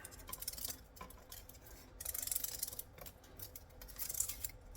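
Aluminium foil cable shielding crinkling and rustling as it is peeled off a stripped cable, in crackly patches, loudest about two seconds in and again near the end, with small clicks.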